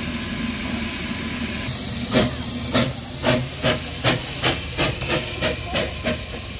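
Steam tank engine 'Thomas' (a Hudswell Clarke 0-6-0T) hissing steam while standing, then starting away with about a dozen exhaust chuffs that come quicker and quicker as it gathers speed.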